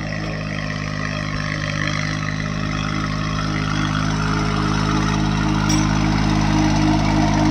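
VST Shakti MT 225 mini tractor's diesel engine running steadily under load while pulling a disc harrow. It grows gradually louder as the tractor approaches.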